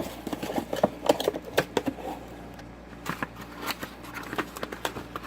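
Hands handling unboxed parts and packaging: irregular clicks, taps and crinkles, several a second, with a few sharper knocks.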